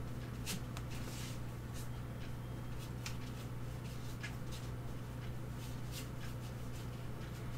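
Large flat watercolour brush stroking and dabbing paint across watercolour paper: irregular short scratchy strokes, about two a second, over a steady low hum.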